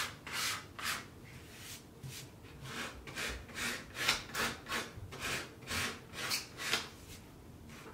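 Sandpaper rubbed back and forth along the edge of an unfinished wood board in quick strokes, a little over two a second, smoothing off splinters; the strokes pause near the end.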